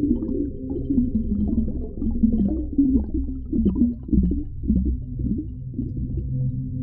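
Underwater ocean ambience: a steady deep rumble with many short, wavering low-pitched sweeps through it, thickest in the middle.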